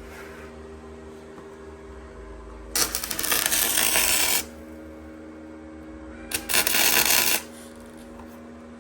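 Two bursts of welding with a crackling arc, the first about a second and a half long and the second about a second, over a steady shop hum. These are short welds, tacking a part in place.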